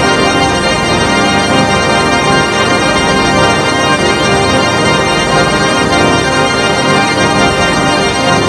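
The Vormulator V13 sound effect: a loud, steady electronic drone of many layered pitches, held without change, close to a sustained organ chord.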